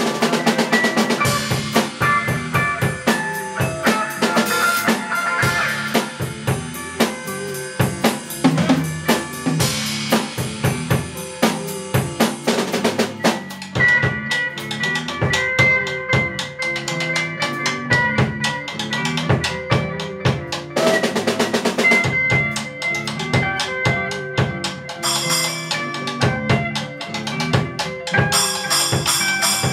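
Tama drum kit and electric guitar playing a bossa nova groove: snare rimshots and bass drum under a repeating guitar pattern from a loop pedal, with guitar improvisation on top.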